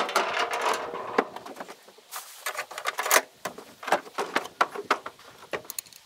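Small metal fuel-line fittings and a fuel filter head being handled and set down: a rustle lasting about a second, then a string of irregular sharp clicks and knocks.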